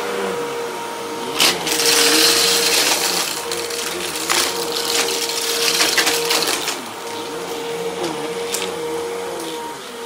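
Vacuum cleaner running over a rug, its motor humming steadily with a wavering pitch. A loud rush of air swells twice as it is pushed along, and there are a few sharp clicks.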